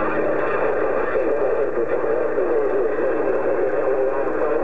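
CB radio receiver on 27.025 MHz putting out steady static, a band-limited hiss with warbling, garbled interference in it, between transmissions.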